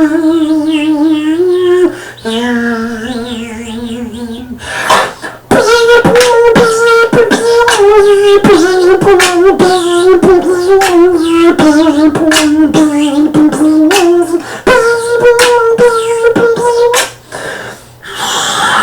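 Human beatboxing: first a held, wavering hummed tone that drops to a lower note, then from about five seconds in a fast run of sharp percussive mouth clicks and kick sounds over a sustained hummed note, which stops shortly before the end.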